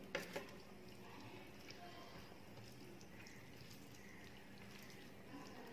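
Two light knocks just after the start, a small glass bowl set down on a tray, followed by faint, soft squishing of fingers mixing rice with curry on a plate.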